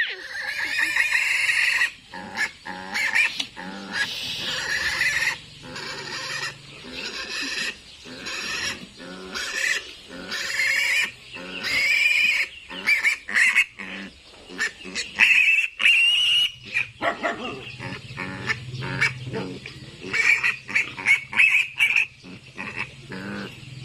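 Piglet squealing over and over: long shrill squeals mixed with runs of short sharp ones, with brief gaps between.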